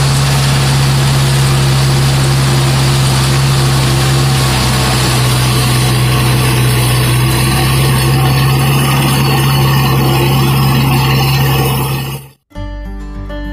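Mahindra Arjun Novo 655 DI tractor's diesel engine running steadily under load at creeper speed, driving a rotavator that churns through soil and banana-leaf trash. The sound cuts off abruptly about a second before the end, replaced by guitar music.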